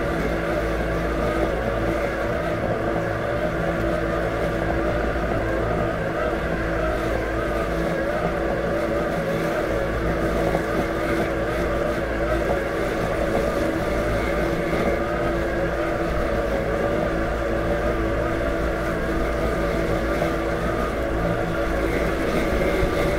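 Robotic lawn mower's electric drive and blade motors running as it travels over the grass: a steady hum with a wavering, higher whine over it.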